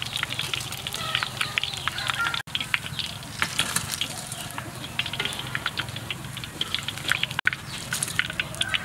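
Deep-frying oil crackling and sizzling around battered frog pieces: a rapid, irregular crackle over a steady low hum, broken off briefly twice.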